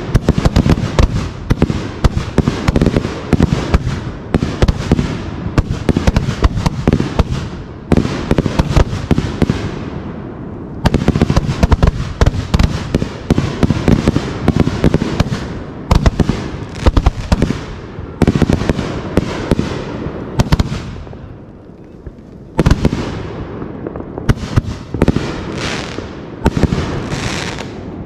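Fireworks show with aerial shells bursting overhead in rapid succession: a dense run of bangs and crackle. Brief lulls come about ten seconds in and again about twenty-one seconds in, before a last volley.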